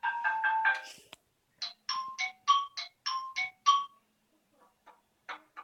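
Phone ringtones played one after another: a run of short electronic notes stops about a second in. A different ringtone of higher, bell-like notes follows, and another starts near the end.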